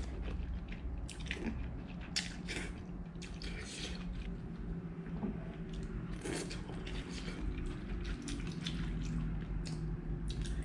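Slurping and chewing of saucy fried Hokkien prawn noodles eaten off a fork: irregular wet smacks and sucking clicks from the mouth, over a steady low hum.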